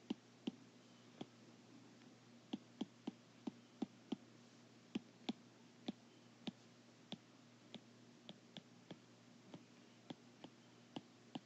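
Light, irregular clicks of a stylus tip tapping a tablet screen during handwriting, a few a second, over faint room hiss.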